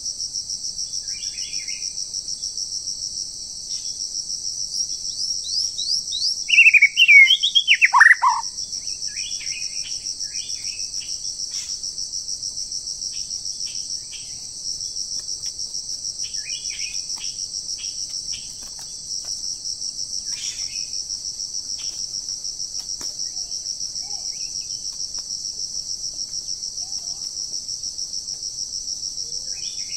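Steady, pulsing drone of forest insects throughout. A songbird gives a loud, short descending phrase about seven seconds in, followed by scattered soft chirps.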